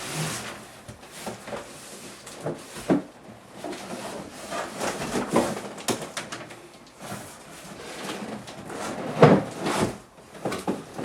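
A cardboard box holding a table saw being handled and flipped over: cardboard scraping and rustling with irregular knocks and thumps, the loudest about nine seconds in.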